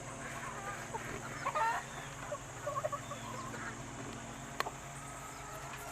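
Game chickens clucking in short, scattered calls, with one sharp click about four and a half seconds in.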